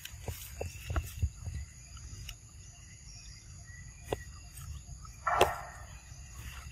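Steady high-pitched insect chorus, with scattered soft ticks and clicks. About five seconds in there is one short, loud scuffing noise.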